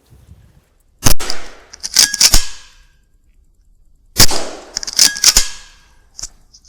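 Weihrauch HW100 .22 PCP air rifle fired twice, about three seconds apart. Each sharp shot is followed within a second by two metallic clacks with a brief ringing tone.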